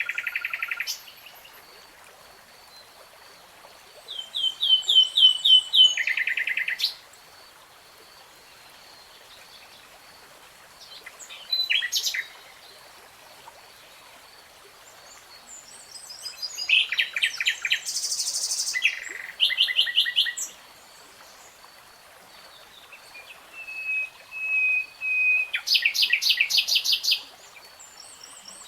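A songbird singing in separate phrases of rapid trills and quickly repeated chirps, with pauses of a few seconds between them, over a faint steady high tone.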